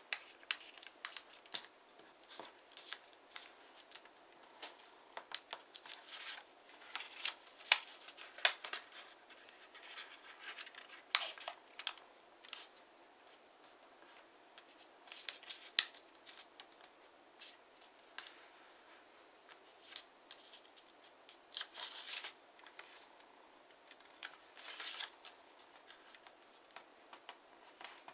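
A square of TANT origami paper being folded and creased by hand: irregular crisp rustles, rubs and sharp clicks as fingers press and run along the folds, with a few louder snaps.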